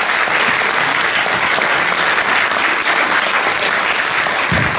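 Concert audience applauding steadily, dense clapping with a brief low thump near the end.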